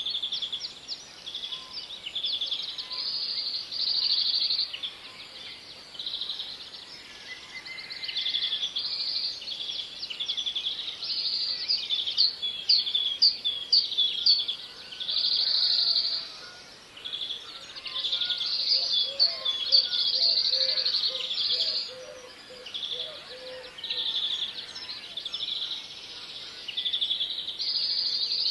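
A continuous chorus of high chirping in overlapping phrases about a second long, with a few sharper, louder chirps near the middle.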